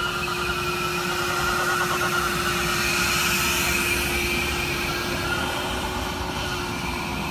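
Formula 240 vacuum machine running, a steady hum under the rushing air at its suction nozzle as it passes over paving. The hiss of the air grows a little brighter about halfway through.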